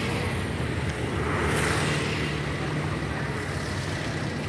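Steady road traffic, with a vehicle passing close by and getting louder to a peak about a second and a half in.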